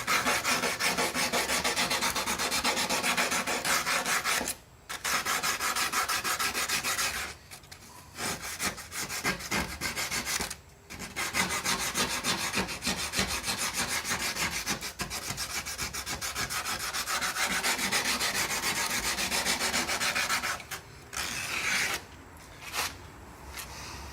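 80-grit sandpaper wrapped around a round sanding block, rubbed quickly back and forth around the edge of a hole in a fiberglass body panel to enlarge it. The strokes stop briefly a few times, then stop around 21 seconds in, with a few short strokes after.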